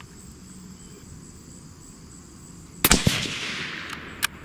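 A single shot from a suppressed Savage Ultralite bolt-action rifle in 280 Ackley Improved, about three seconds in: a sharp crack, a second crack a fraction of a second later, and a tail of echo fading over about a second. A short click follows near the end.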